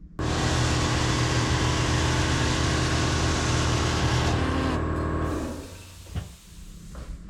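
Air compressor starting up abruptly and running, pretty noisy, for about five seconds, then winding down and stopping.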